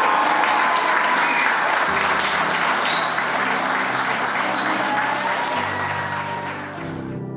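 A crowd applauding, with low sustained notes of background music underneath; the applause cuts off suddenly near the end, leaving only the music.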